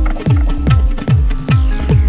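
Electronic dance music with a steady, pounding kick drum, about two and a half beats a second, under sustained synth tones.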